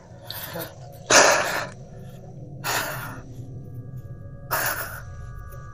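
A person breathing hard close to the microphone, about one loud breath every second and a half. A faint steady high tone sets in around the middle.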